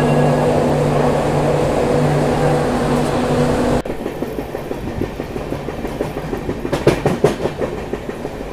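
A locomotive running with a steady low hum. Then, after a sudden cut about four seconds in, a moving train's running noise, its wheels clattering over the rails with a short cluster of sharp clicks near the end.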